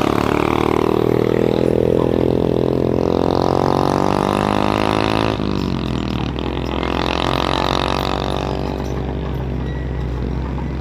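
Excavator's diesel engine running under load, a steady low hum with a droning note above it that shifts as the machine is worked, changing abruptly about five seconds in.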